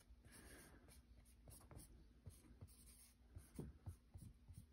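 Faint strokes of a red marker on a large paper sheet as capital letters are written out, one short stroke after another, with a few sharper strokes near the end.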